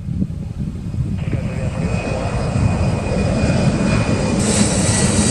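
Twin-engine jet airliner climbing out at takeoff power: a steady low engine rumble growing louder. A high whine comes in about a second in, and a bright hiss builds near the end as the jet comes overhead.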